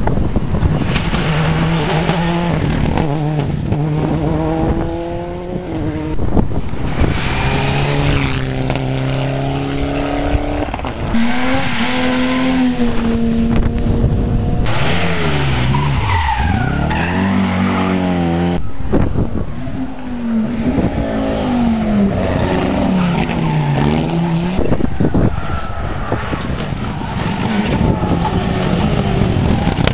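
Rally cars driving past one after another at speed, engines revving hard with the pitch climbing and falling through gear changes, dropping sharply under braking and climbing again as they pull away.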